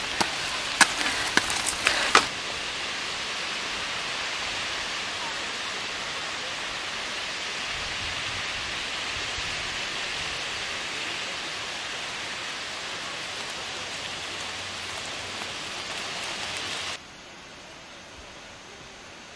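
Mountain bikes rolling over a loose, stony dirt track, giving a few sharp clicks and rattles in the first two seconds, over a steady hiss that drops to a quieter hiss near the end.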